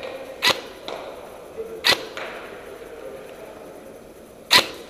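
Airsoft gun fired in single shots: three sharp cracks, the last the loudest, spaced unevenly over about four seconds.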